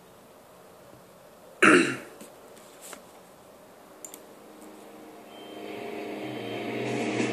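A single sharp cough about a second and a half in, over quiet room tone with a couple of faint clicks. From about five seconds, music fades in: a drone of several held notes that grows steadily louder.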